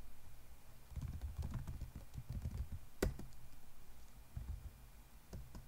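Typing on a computer keyboard: a run of soft key presses, with one sharp, louder keystroke about three seconds in and a few lighter taps near the end.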